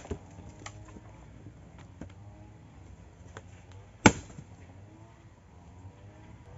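Axe chopping into a wooden log: a lighter strike at the start and one sharp, loud strike about four seconds in, with a few faint knocks between.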